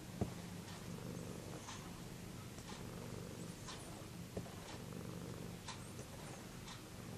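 A domestic cat purring steadily, a low continuous rumble. Faint sharp ticks come about once a second, with one louder click shortly after the start.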